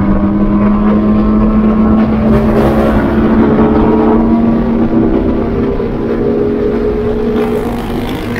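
Car engine running hard under steady acceleration, its note slowly rising in pitch, with a slight fall in level near the end.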